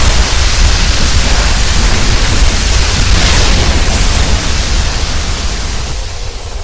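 Monster sound effect for King Ghidorah: a loud, steady rushing noise over a deep rumble, with no roar or tone in it, beginning to fade away near the end.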